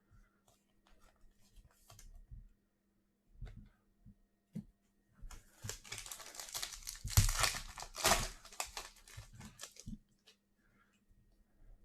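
A trading card pack's wrapper being torn open and crinkled, a dense crackle for several seconds, loudest in the middle. Before it come a few light clicks of cards being handled.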